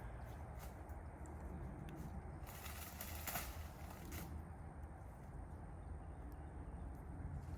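Quiet outdoor background noise: a steady low rumble with a few faint clicks, and a brief hiss about halfway through.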